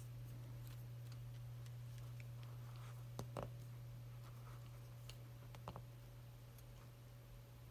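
Plastic joints of a Transformers Kingdom Leader-class Megatron action figure clicking as it is posed by hand: a pair of sharp clicks about three seconds in and another pair near six seconds, with a few fainter ticks, over a steady low hum.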